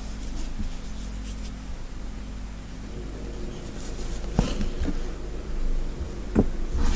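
Hand embroidery: a needle piercing fabric and cotton embroidery floss being drawn through, soft scratchy rustles with two sharp taps about four and six seconds in, over a steady low hum.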